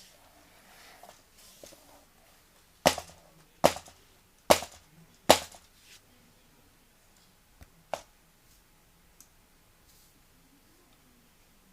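Four sharp knocks or clicks, evenly spaced a little under a second apart, then two fainter ones a couple of seconds later.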